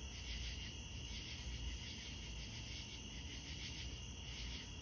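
Night insects, crickets or similar, trilling steadily in a high, pulsing chorus, over a low rumble.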